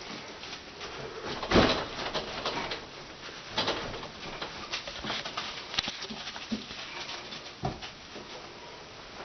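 Scattered knocks, clicks and scrapes of hands and tools working on a dishwasher being fitted in place, with a louder knock about one and a half seconds in.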